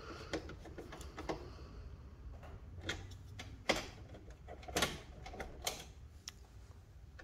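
Scattered clicks and knocks of hand work inside an electrical breaker panel as a 60 amp stab-lok breaker is fitted, the sharpest knocks falling in the middle of the stretch.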